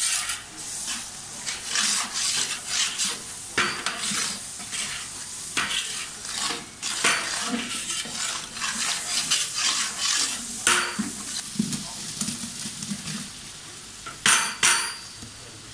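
A long steel ladle stirring and scraping through masala in a large aluminium pot, in repeated strokes. Near the end there are two sharp knocks as a bowl of sliced shallots is emptied into the pot.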